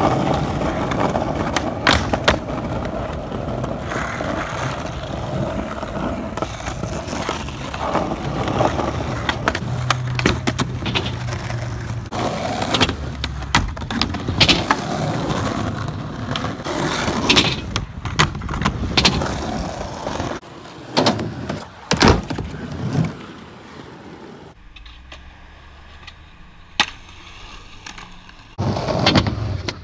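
Skateboard wheels rolling over concrete, with many sharp clacks from tail pops, board slaps and landings. The rolling grows quieter for a stretch near the end, still broken by a few clacks.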